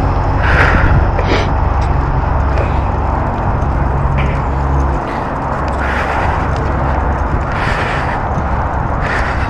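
Wind rushing over the microphone of a handlebar-mounted camera on a moving bicycle, a steady low rumble. The tyres are running over a wet, puddled towpath, with a few short hisses.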